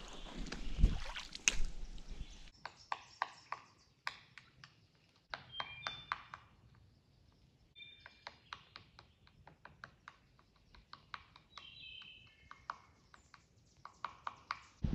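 Animal calls: an irregular run of sharp clicks mixed with short, high chirps in small clusters. In the first couple of seconds there is creek water trickling, with two low thumps.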